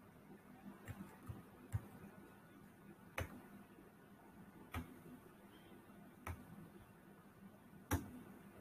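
Faint, sharp computer clicks over low hiss, a few close together early, then one about every second and a half, as the slides are paged back.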